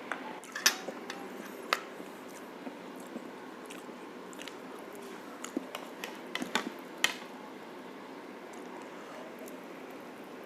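Chewing and biting of tender braised pork shank close to the microphone, with scattered sharp wet smacks and clicks, a cluster about a second in and another around six to seven seconds in, over a steady low hiss.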